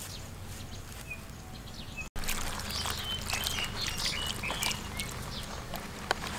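Water pouring and trickling from a clay pot over a lizard's carcass while a hand rubs and scrubs its skin on a large leaf: wet splashing, scratching and crackling of the leaf. Short bird chirps sound in the background, and the sound drops out briefly about two seconds in.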